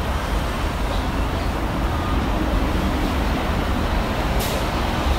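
Steady low rumble and hiss of outdoor background noise, with a single short click about four seconds in.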